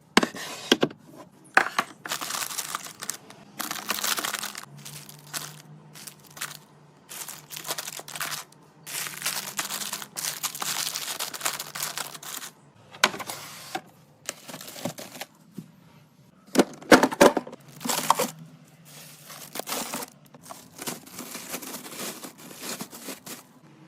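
Packaging and containers being handled while restocking a fridge: repeated crinkling and rustling of plastic wrap and bags in bursts, with sharp clicks and knocks, the loudest a pair of clicks about two-thirds of the way through.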